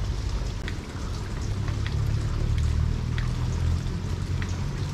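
Light rain falling, with scattered single drops ticking, over a steady low hum.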